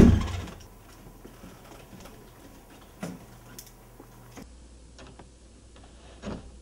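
A door shuts with a loud thud at the start. A low room hum follows, with a few soft isolated clicks.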